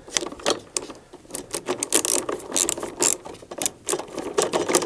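Hand screwdriver with a T27 Torx bit driving screws into the condensate pump's metal bracket and plate, a run of quick irregular clicks and ticks as it turns.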